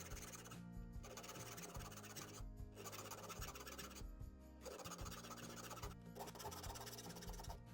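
Background music with a metal file rasping across the teeth of a hand saw being sharpened.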